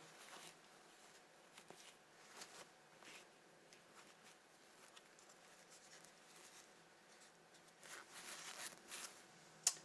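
Faint, scattered rustling of bubble wrap and plastic packaging as a camera body is unwrapped, growing busier about eight seconds in, with one sharp click just before the end.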